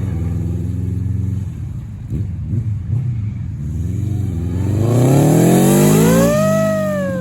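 1984 Honda Nighthawk CB700SC's inline-four engine running at a steady low speed, then revved up from about four seconds in, its pitch climbing to a peak and falling back toward the end.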